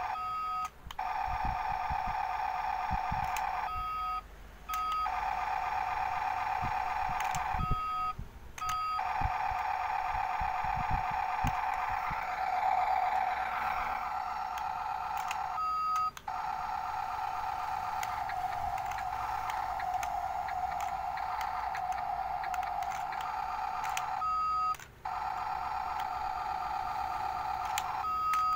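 Remote-control toy cement mixer truck giving out a steady electronic hum. The hum drops out for a moment about five times, and each dropout is marked by a short, higher beep. A few dull knocks come in the first ten seconds.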